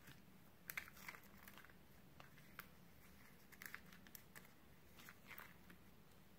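Faint, scattered crunches and crackles of crisp microwave-made potato chips, a dozen or so irregular snaps over a low steady hum.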